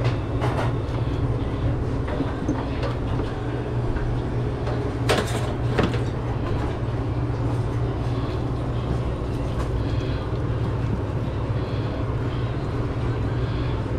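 Steady low mechanical hum, with a few scattered clicks and a sharp knock about five seconds in.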